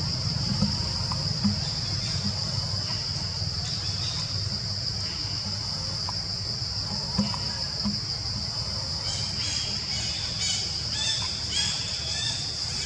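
Forest ambience: a steady high-pitched insect drone with a low rumble beneath, and a bird chirping repeatedly in quick short notes over the last few seconds.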